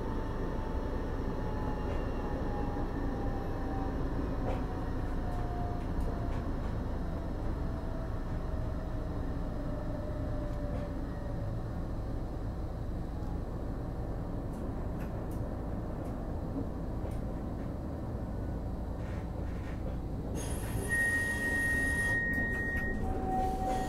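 Electric tram heard from inside the passenger saloon: a steady running rumble, with a thin motor whine that falls slowly in pitch over the first half. Near the end a steady high beep sounds for about two seconds, then a short lower tone.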